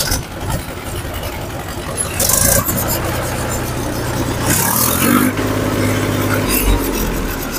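Mahindra 265 DI Power Plus tractor's three-cylinder diesel engine running steadily, the revs rising briefly a little past the middle.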